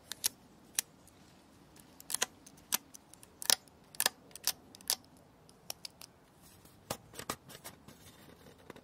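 Sharp, irregular clicks and crackles as a fingernail picks at and peels a clear tape seal off the lid edge of a metal tea tin.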